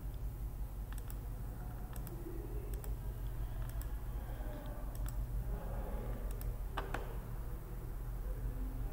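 Computer mouse clicking, sharp single clicks at irregular intervals about a second apart, placing anchor points with Illustrator's curvature tool, over a steady low hum.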